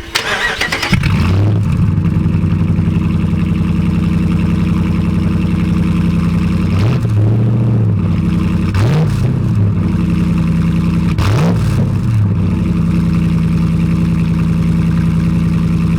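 Dodge Ram 1500 Hemi V8 running with no muffler fitted, straight exhaust. It comes in about a second in and idles steadily. It is blipped three times, the pitch rising and falling back each time, at about seven, nine and eleven and a half seconds.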